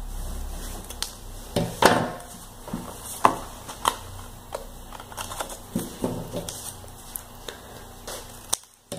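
Scissors snipping a strip of paper, with the paper rustling against a cardboard box as it is handled: a scattering of short, separate snips and rustles.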